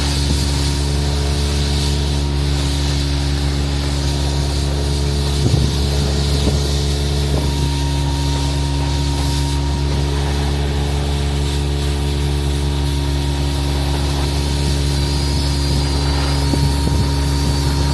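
A Guzzcavator vacuum excavator running hard with a loud, steady, unchanging drone from its engine and vacuum blower. A brief clatter comes about five and a half seconds in.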